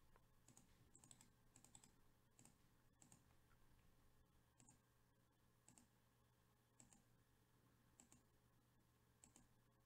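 Faint computer mouse clicks, roughly one a second, over a low steady hum; otherwise near silence.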